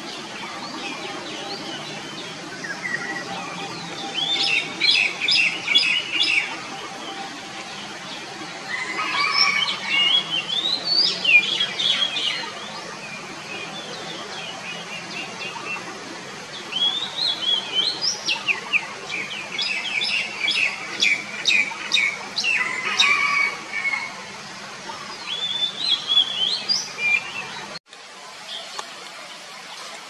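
Oriental magpie-robin singing: several phrases of clear whistles with rising sweeps and quick runs of repeated short notes, separated by pauses. The sound drops out abruptly for a moment near the end.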